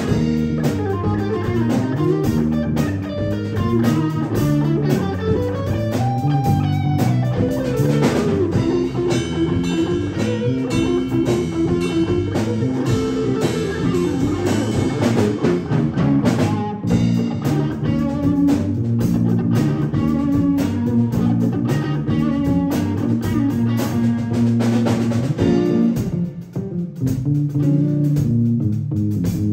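Live jazz-funk band playing: saxophone, electric bass guitar and drum kit in a funk groove, with a brief dip in loudness near the end.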